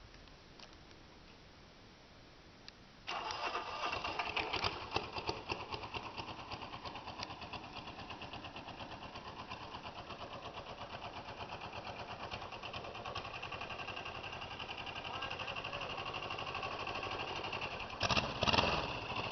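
Kubota diesel engine in a Cub Cadet garden tractor cold-starting: it catches suddenly about three seconds in, runs unevenly for a couple of seconds, then settles into a steady idle with a fast regular clatter. A couple of louder bursts come near the end.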